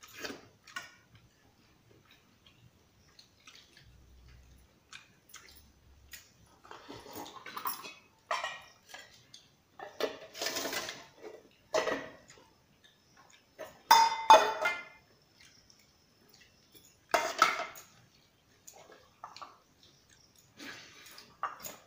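Stainless steel plate, bowls and vessel clinking and scraping in scattered bursts during a meal eaten by hand. About two-thirds through come two sharp, ringing clinks of steel, the loudest moment.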